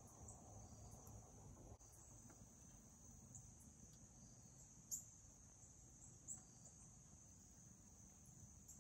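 Faint, steady high-pitched chorus of evening insects, typical of crickets trilling. A single soft click comes about five seconds in, and a weaker one a little over a second later.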